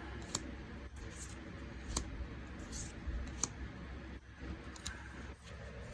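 Magic: The Gathering cards being handled and flicked through: scattered light clicks and snaps of card stock, over a low steady hum.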